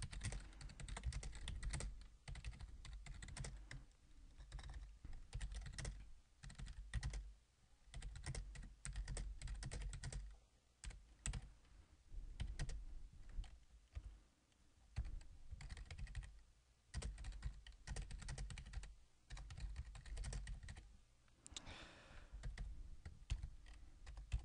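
Computer keyboard being typed on: runs of quick keystrokes in bursts, broken by short pauses between phrases.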